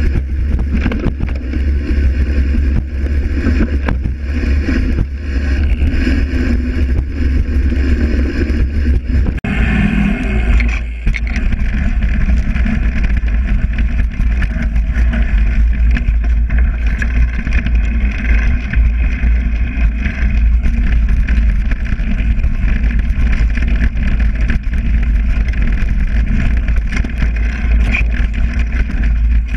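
Wind buffeting the microphone of a bike-mounted action camera over the tyre rumble and frame rattle of a mountain bike riding a dirt and leaf-covered trail. The noise changes abruptly about nine and a half seconds in.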